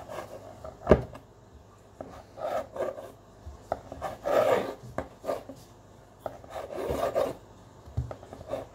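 A large kitchen knife slicing through a folded stack of fresh noodle dough on a cutting board. There are rasping strokes as the blade draws through the dough, and sharp knocks of the blade on the board, the loudest about a second in.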